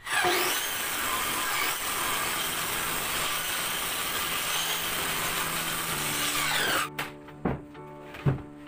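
Circular saw spinning up and cutting through a plywood sheet, its whine winding down and stopping about seven seconds in. Two sharp knocks follow as the cut panel is handled.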